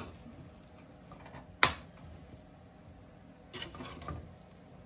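A spoon stirring and scraping through cooked rice in a stainless steel pot, with one sharp clank against the pot about one and a half seconds in and a few softer scrapes near the end. The pilau rice is cooked and being turned over.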